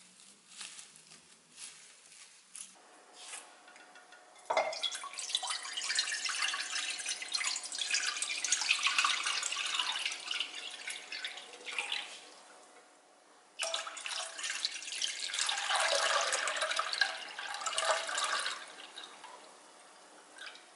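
Water poured in a steady stream into a pot for about eight seconds. After a short pause, soy sauce is poured in for about five seconds, and the pour trails off.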